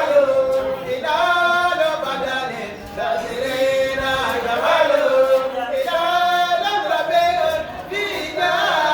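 A group of voices chanting praise together without instruments, in drawn-out sung phrases of a second or two each.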